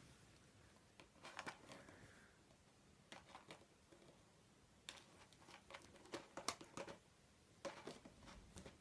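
Faint bursts of light clicking and rustling, in four separate flurries: a cat pawing and scrabbling to get at a container of cat treats.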